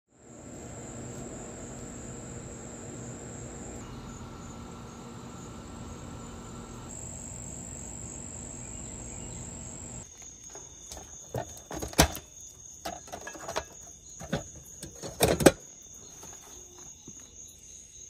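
Crickets trilling at a steady high pitch over the low, steady whir of a heat pump's outdoor unit with its condenser fan running. About halfway through, the whir drops away and a run of sharp knocks and clicks follows, two of them loud.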